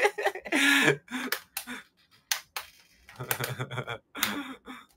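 A young man laughing: short breathy bursts of laughter, with a quick run of 'ha-ha' pulses a little after three seconds in. It cuts off suddenly near the end.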